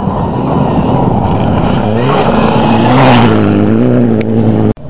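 Rally car racing past on a gravel stage. The engine rises to full throttle, loudest about three seconds in, then holds a steady high note. The sound cuts off abruptly near the end.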